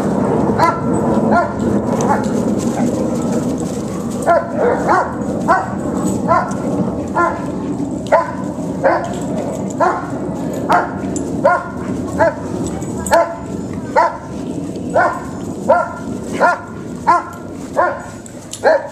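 Dog barking during rough play, short sharp barks repeating a little faster than once a second, each dropping in pitch, starting about four seconds in.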